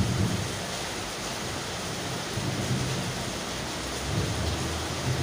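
Heavy rain falling steadily on a wet street, an even hiss, with a low rumble swelling up a few times.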